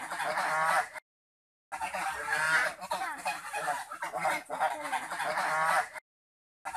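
A flock of domestic geese honking and cackling over one another in repeated calls, cut off twice by short gaps of dead silence.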